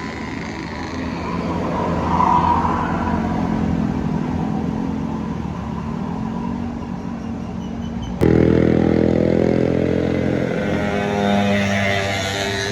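Bus engines running and passing close by, with an abrupt cut about eight seconds in to a louder, nearer bus engine.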